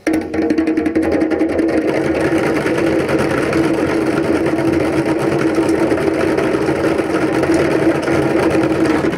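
Ensemble of djembes and plastic bucket drums struck with hands and sticks, playing a fast, dense rhythm of closely packed strokes over a steady drum ring.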